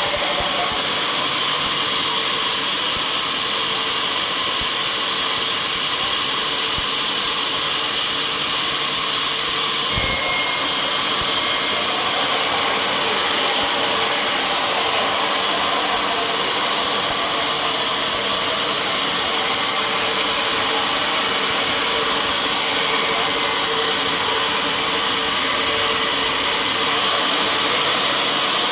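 Sawmill saw running steadily, a loud even noise strongest in the high range, with a slight change in its texture about ten seconds in.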